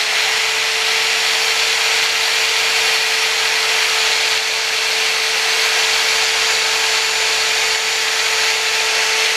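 Handheld electric rotary tool running at a constant speed, its sanding tip working over the spokes of a powder-coated alloy motorcycle wheel: a steady motor whine over a gritty sanding hiss.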